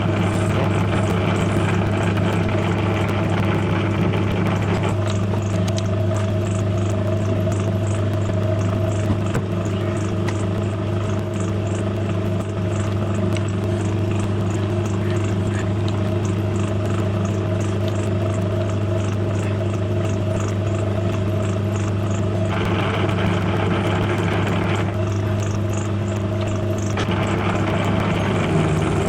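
Milling machine running steadily with an even motor hum while milling down a small threaded part, with slightly brighter cutting noise for a few seconds near the end.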